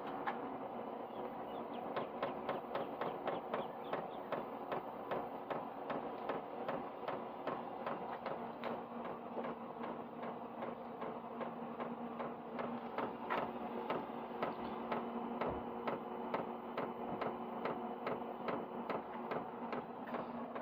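Diesel air heater running through its start-up: a steady fan hum with a regular ticking, about two or three ticks a second, typical of its fuel dosing pump.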